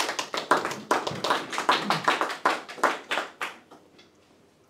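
Applause from a small audience, a patter of hand claps that thins out and stops about three and a half seconds in.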